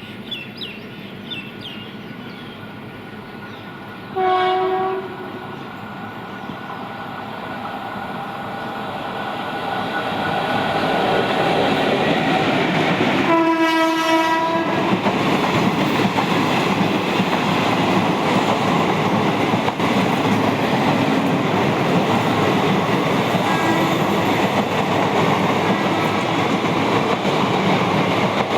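An Indian Railways train sounds its horn twice, a short blast about four seconds in and a longer one about nine seconds later. Its running noise grows over several seconds as it approaches, then stays loud and steady.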